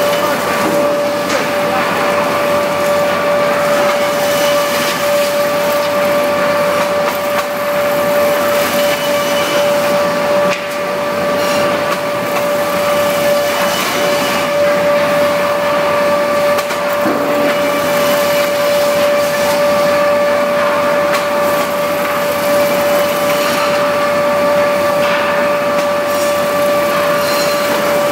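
REX woodworking planer running, a steady high-pitched whine over a dense rushing noise.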